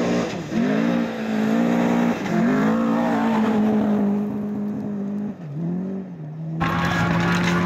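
Historic rally car engine revving hard under acceleration, its pitch climbing and dropping back at several gear changes. Near the end the sound cuts suddenly to another rally car's engine.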